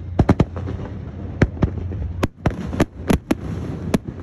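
Aerial fireworks shells bursting: more than a dozen sharp bangs in quick, irregular succession.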